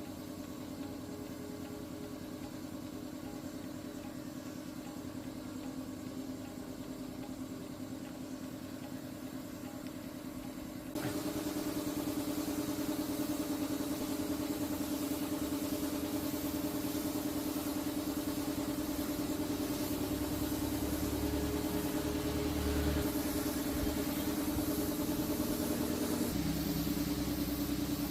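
An old truck engine idling steadily. About eleven seconds in it suddenly becomes louder and brighter, then runs on steadily.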